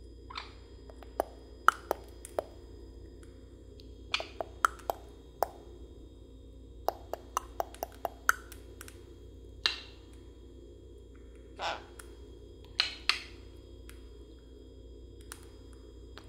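Sun conure eating: irregular sharp clicks and taps of beak and food, coming in little clusters, with a few short, louder sounds about two-thirds of the way in.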